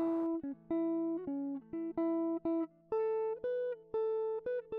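Background music only: a simple melody picked one note at a time on a guitar-like plucked instrument over a held low note.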